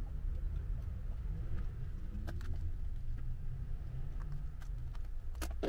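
A few light clicks and taps of an iPad Pro 10.5's screen and aluminium housing being handled and fitted together during reassembly, the sharpest near the end, over a steady low room hum.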